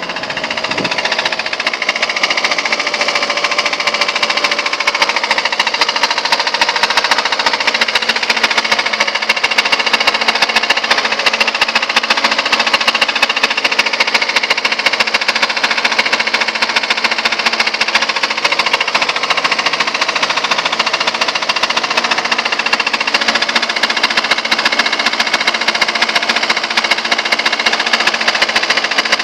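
Car engine running with a loud, rapid, steady metallic knocking. The owner cannot tell whether it is connecting-rod knock or a failed oil pump.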